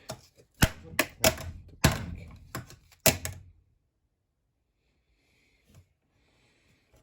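Sharp cracks and knocks of a fan's hard plastic parts being forced and struck, about nine in quick succession, stopping after three and a half seconds; the plastic holds without breaking.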